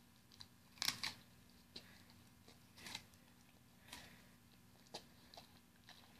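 A husky chewing and biting into an apple, with crisp crunches: the loudest about a second in, then softer ones about once a second.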